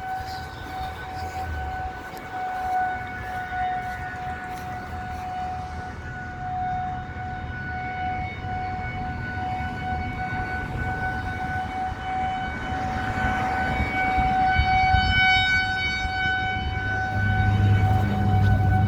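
Federal Signal 2001-130 electromechanical outdoor warning siren sounding a steady single tone for a tornado siren test. It grows louder and brighter, with more overtones, in the second half.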